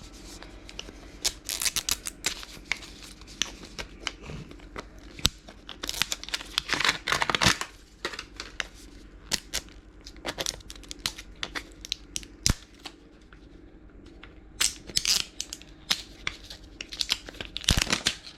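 Plastic packaging of a Miniverse Make It Mini capsule being torn open and crinkled: irregular rustling bursts and sharp clicks.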